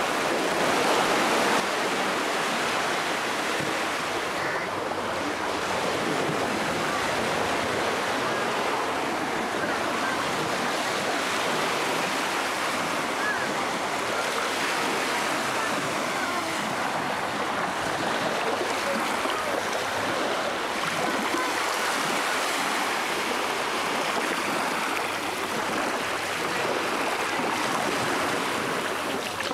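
Small waves washing onto a sandy beach, a steady shore wash of surf with no single breaker standing out.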